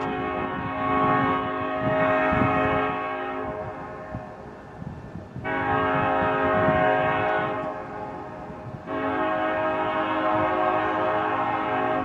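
Diesel freight locomotive's multi-chime air horn blowing long blasts: one already sounding that stops a few seconds in, then after a short gap a second, followed almost at once by a third, over the low rumble of the train.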